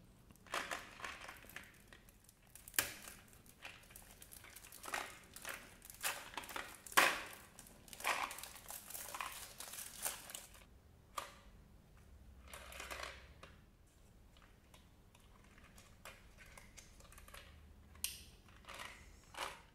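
Thin clear plastic overwrap crinkling and crackling in irregular bursts as it is peeled off a small cardboard pack of mints, loudest about seven seconds in. From about eleven seconds on there are only occasional light rustles and clicks as the box is handled and opened.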